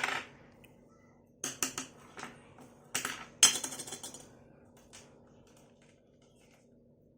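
Short clinks and clatters of small hard objects in two clusters, about one and a half and three seconds in; the second cluster is the loudest.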